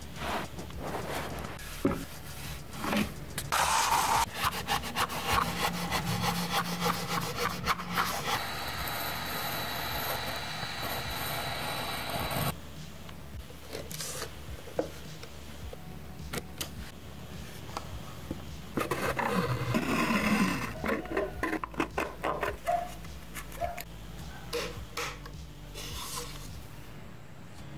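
Hand work on a wooden enclosure being covered in carbon-fibre vinyl wrap: irregular rubbing, scraping and light knocks of parts and tools. About a third of the way in, a steady tone runs for about four seconds and cuts off suddenly.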